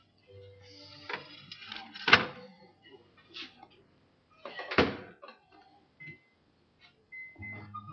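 An oven being loaded: a baking dish slid in and the oven door shut, heard as a few separate clunks and knocks. The loudest comes about five seconds in.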